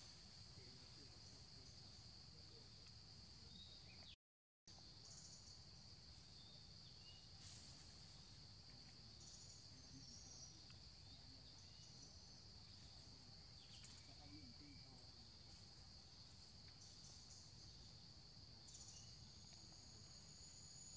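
Faint forest ambience: a steady high-pitched insect drone, with a few faint bird chirps. The sound cuts out completely for about half a second, about four seconds in.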